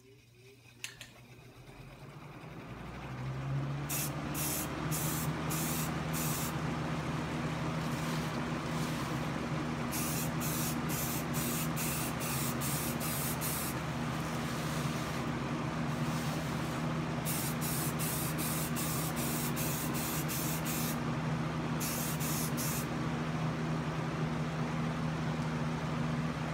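A homemade exhaust fan spins up over the first few seconds and then runs with a steady hum. Over it an aerosol can of spray primer hisses in several runs of short spurts.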